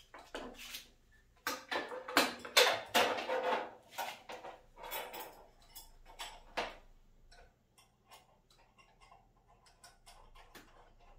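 Metal U-bolts and nuts clinking and knocking against a wooden beam and steel sawhorse as they are fitted and tightened by hand. A cluster of louder knocks and rattles comes in the first half, then lighter scattered ticks.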